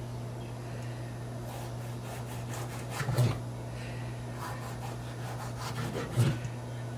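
Kitchen knife sawing through tomatoes on a cutting board, with two knocks of the blade reaching the board, about three seconds in and again near the end. A steady low hum runs underneath.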